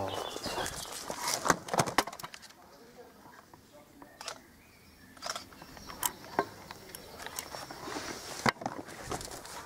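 Handling noise from a camera carried while left running by accident, with clicks, knocks and rustles plus footsteps on grass. The knocks are busy at first, ease off for a couple of seconds in the middle, then pick up again.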